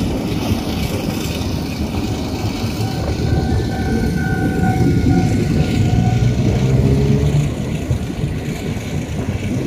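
KTMB Jungle Train carriage running at speed, heard through its open door: a steady rumble of wheels on rail mixed with wind noise. About three seconds in, a steady tone sounds for roughly three seconds, followed briefly by a lower one.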